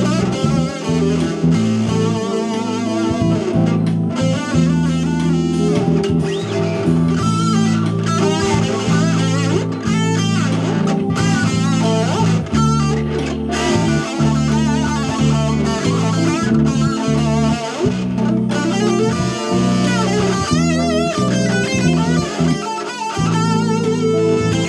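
Lead playing on a Gordon Smith Firebird electric guitar through a small Kay practice amp with no effects, its held notes wavering with vibrato. Under it runs a backing track with a bass line.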